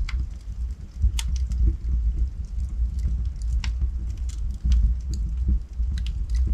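Wood fire burning in a fireplace: a steady low rumble of flames with irregular sharp crackles and pops from the logs, the sharpest about a second in and again around three and a half seconds in.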